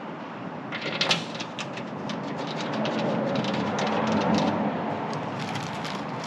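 Fold-down barn door table panel being released and lowered on its hinges: a sharp click about a second in, then a run of light clicks and knocks as it is handled, over steady background noise that swells in the middle.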